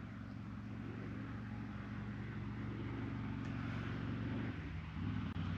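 An engine running steadily with a low hum, slowly getting louder.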